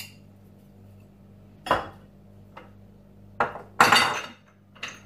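Kitchen containers and utensils being handled around a glass mixing bowl: four separate knocks and clinks, the loudest a half-second scraping rattle about four seconds in.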